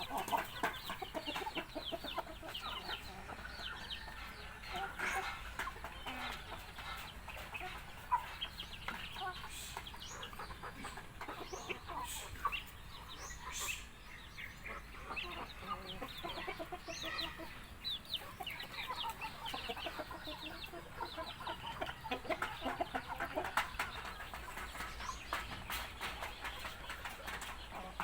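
A flock of chickens clucking steadily while being fed, with many short clicks mixed in throughout.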